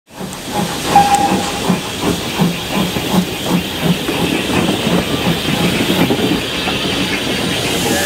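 BR Standard Class 2 2-6-0 steam locomotive No. 78022 chuffing at about three beats a second over a steady hiss of steam. The beats die away near the end, leaving only the hiss. A short high tone sounds about a second in.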